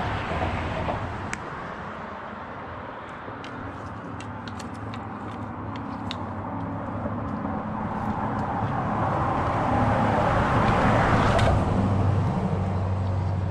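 A motor vehicle passing, over a steady low engine hum: it builds to its loudest about ten seconds in and then eases off, with scattered light clicks.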